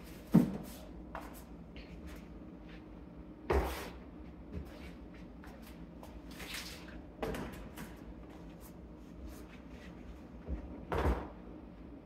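Frozen food packages handled and set down on the shelves of an open freezer: a handful of knocks and clatters, the loudest about half a second in and others around four, seven and eleven seconds, with light rustling and a faint steady hum in between.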